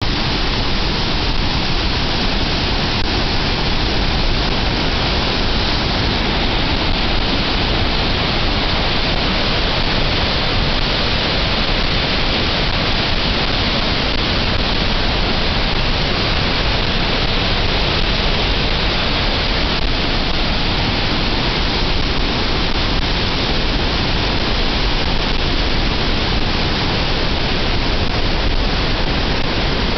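Floodwater released from Oahe Dam at about 150,000 cubic feet per second, churning through the concrete stilling basin: a steady, loud rush of turbulent white water.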